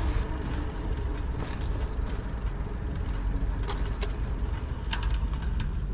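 Bicycle riding on a concrete path: a steady rushing noise of wind over the microphone and tyres rolling, with a few sharp clicks and rattles from the loaded bike.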